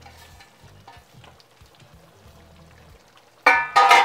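Thick soup simmering quietly while it is stirred with a spatula in a large aluminium pot. Near the end come two loud metallic clanks, a quarter second apart, each with a short ring.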